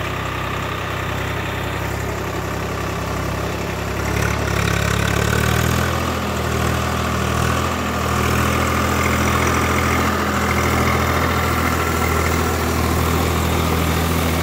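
Swaraj 744 FE tractor's three-cylinder diesel engine running steadily under load as it pulls a rotavator through flooded paddy mud. It grows louder about four seconds in as the tractor comes up close and passes by.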